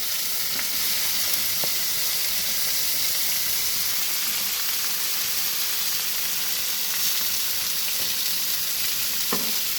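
Food frying, a steady sizzle.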